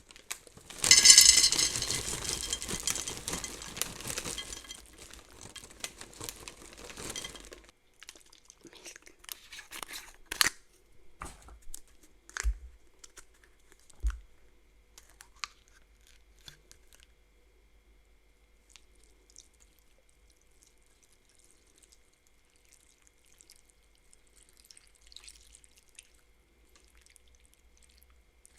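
Dry cereal and its packaging handled: a dense rustling rattle for about seven seconds, then a string of separate clicks and taps that thin out into faint ticks.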